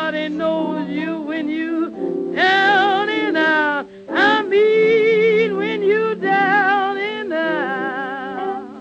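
Background music: a melody of long held notes with strong vibrato over sustained lower notes.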